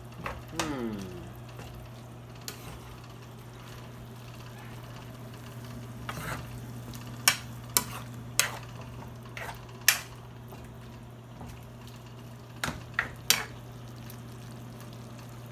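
Chicken, onion and mushroom being stir-fried in a pan over a faint steady frying background. A utensil stirs and scrapes the pan, with a run of sharp knocks against the pan about halfway through and a few more near the end.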